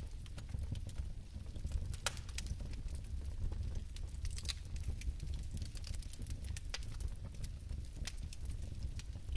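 Bioethanol fireplace flames burning with a steady low rumble and scattered sharp crackles and pops, about one a second.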